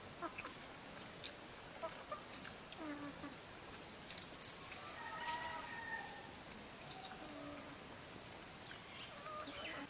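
Chickens clucking now and then, a handful of short calls, over faint small clicks.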